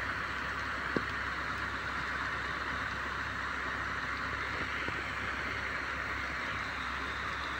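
Steady outdoor background hiss, with one sharp click about a second in and a fainter click near five seconds, while a fishing rod is cast.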